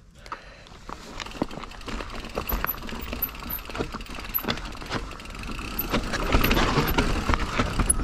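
Mountain bike rolling over rough, rocky trail: many short clicks, knocks and rattles from the bike, growing steadily louder toward the end.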